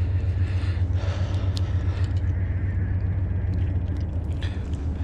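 Steady low rumble with a hiss of flowing stream water and wind on the microphone, with a few faint clicks.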